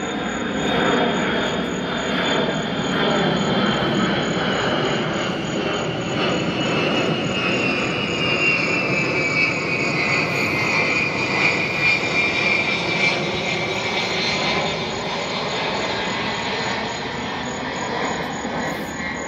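Aircraft engine noise, steady, with a high whine that slowly falls in pitch from about six to fifteen seconds in, as the aircraft passes over.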